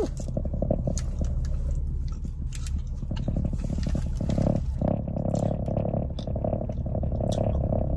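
Close-up chewing of a soft, chewy Sour Patch Watermelon gummy candy with snap-in implant dentures: small wet clicks and smacks with the lips closed. Under it runs a steady low hum, and a second, higher hum joins about four seconds in.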